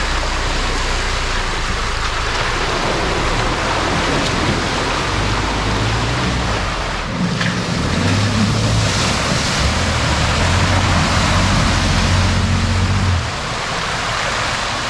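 Four-wheel-drive engine running with a steady low drone under a loud, steady rushing noise; the engine note strengthens about eight seconds in and eases again about thirteen seconds in.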